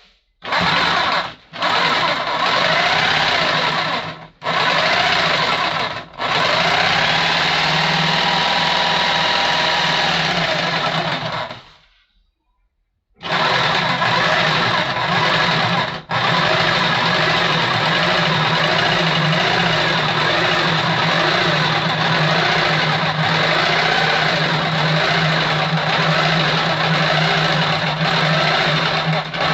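Electric power tool running in stretches, switched off and on again several times, with one longer pause near the middle.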